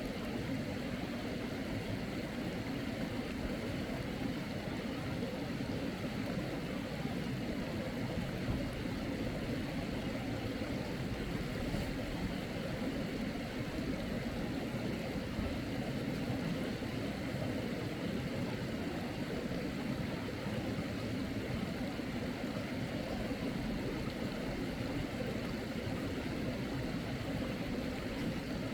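Steady rush of a mountain stream's flowing water, an even noise that holds at the same level without change.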